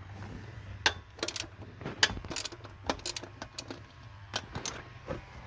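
Ratchet wrench with a socket clicking in irregular spurts, with small metal clinks, as bolts are worked loose. A steady low hum runs underneath.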